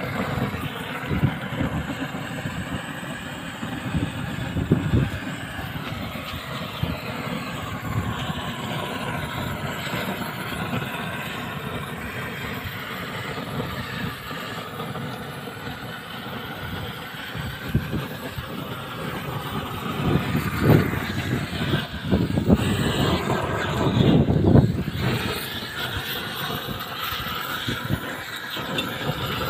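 Gas roofing torch burning steadily as it heats the seam of a torch-on bitumen waterproofing membrane. Low gusty rumbles of wind on the microphone come and go, strongest about two-thirds of the way through.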